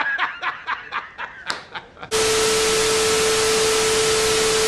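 Short clicks and brief voice sounds, then about two seconds in a loud even hiss carrying one steady low tone starts abruptly, holds at a flat level for about two and a half seconds, and cuts off sharply. It is a static-and-buzz sound effect inserted in the edit.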